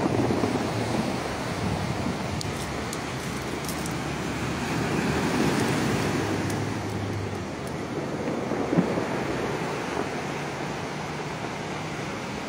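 Pacific Ocean surf breaking and washing ashore, a steady rush that swells about five seconds in and eases off again, with a low hum underneath and one brief knock about nine seconds in.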